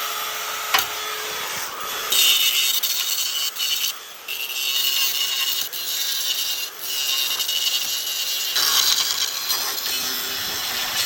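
A tool grinding and scraping on the brush hog's metal in a series of rough strokes, each a second or two long with short breaks between them. A drill's whine fades out in the first two seconds.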